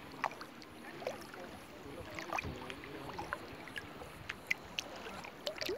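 Shallow sea water lapping and sloshing right at the microphone, with many small sharp splashes and drips scattered throughout.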